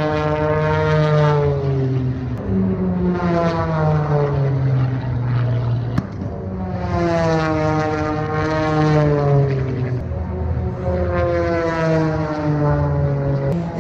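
Propeller race plane flying the course, its engine note falling in pitch in four long sweeps as it goes by, over a steady low drone.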